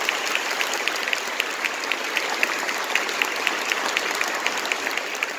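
Congregation applauding: many hands clapping in a dense, irregular patter at a steady level.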